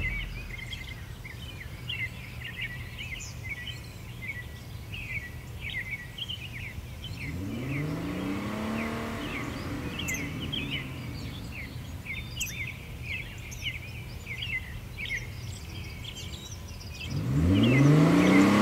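Small birds chirp continually over a low steady hum. Midway, a pickup truck's engine swells, rising and then falling in pitch. Near the end the Nissan D21 Hardbody's engine revs up loudly.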